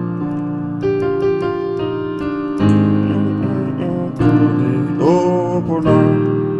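Keyboard playing sustained gospel chords, with a quick run of notes about a second in. Near the end a man's voice sings "Open".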